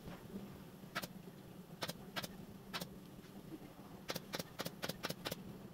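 Pneumatic upholstery staple gun firing staples: a few single sharp shots spaced about a second apart, then a quick run of about seven near the end, over a steady low hum.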